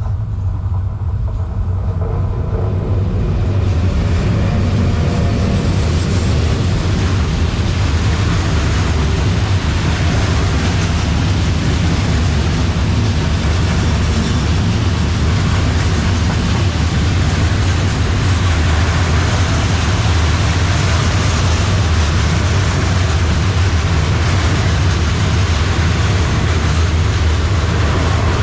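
Long freight train carrying new metal railway sleepers passing close by, its rumble building over the first few seconds and then running on steadily.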